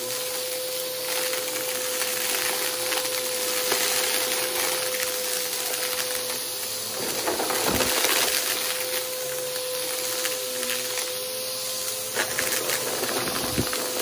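Aeroswift vacuum cleaner running with a steady motor whine while it sucks up a crunchy debris mix that crackles and rattles through it, with a couple of heavier crunches about halfway through and near the end.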